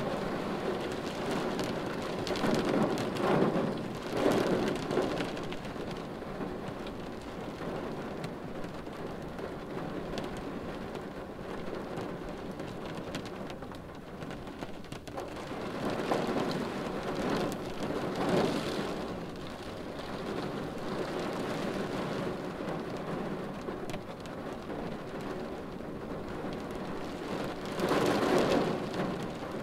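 Rain falling on a car's windshield, heard from inside the car: a steady rush of rain that swells louder three times.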